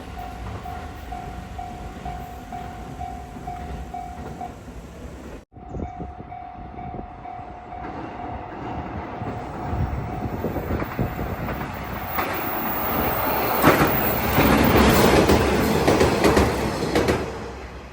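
Level-crossing warning bell ringing at about two dings a second, with a short dropout a little past five seconds. A train then passes over the crossing, loudest from about twelve to seventeen seconds in, before falling away near the end.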